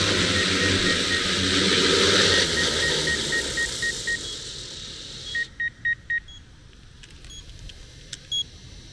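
DJI Matrice 300 RTK quadcopter's rotors winding down on its landing pad, the whir fading and stopping about five and a half seconds in. Over it, a steady run of short electronic beeps, several a second, then a few scattered higher beeps after the rotors stop.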